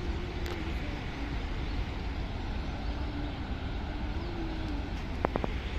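Steady rush of turbulent river water below a barrage's open sluice gates, with a low rumble, a faint wavering engine hum from a small boat on the river, and three quick clicks near the end.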